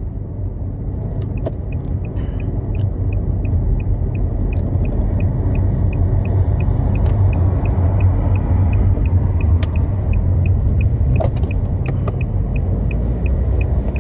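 Low road and engine rumble inside a moving car's cabin, swelling a little in the first few seconds, with a turn signal ticking evenly over it.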